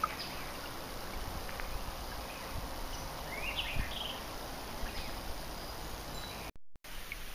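Quiet riverside ambience: a steady outdoor hiss, with a few faint chirps about halfway through.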